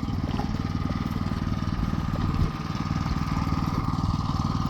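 A small engine running steadily at idle, with fast even pulsing and a thin steady whine above it. There is a brief knock about two and a half seconds in.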